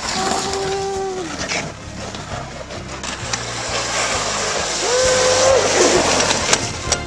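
Luge sled runners hissing and scraping over an iced luge track as sliders go by close to the camera, a loud, even rush of noise. Two long held yells ring out over it, one at the start and one about five seconds in.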